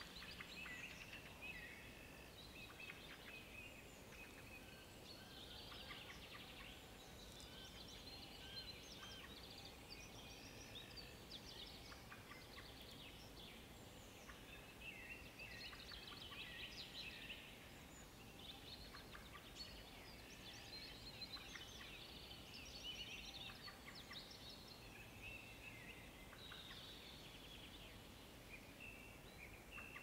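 Faint chorus of small birds singing and chirping in many short, overlapping phrases.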